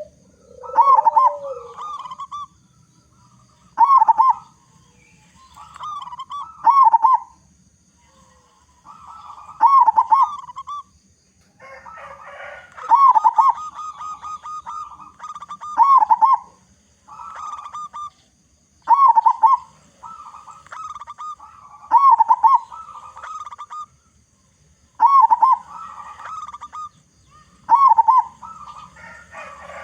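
Zebra dove (perkutut) cooing loudly, each short phrase of several quick notes, repeated about every three seconds.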